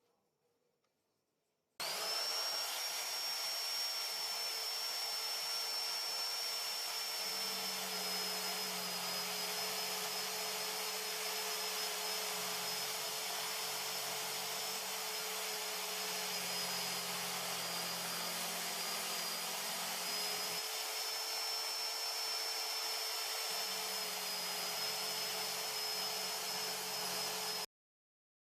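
Electric drill spinning a homemade cylindrical sanding drum: the motor starts a couple of seconds in and runs steadily with a high whine, and a lower rubbing sound comes and goes from about seven seconds in as wood is sanded. It cuts off abruptly near the end.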